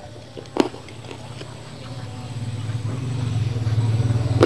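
A metal spoon clicks once against the plate about half a second in. Then a low engine drone grows steadily louder over the next few seconds, a motor vehicle approaching.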